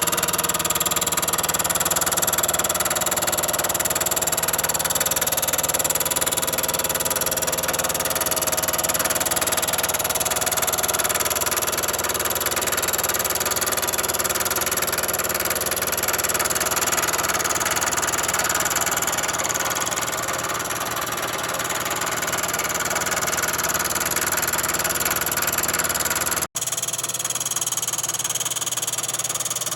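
Milling machine running steadily while a fly cutter takes a cut across the anvil surface of a Wilton bench vise. The sound breaks off briefly near the end and then carries on, a little thinner in the low end.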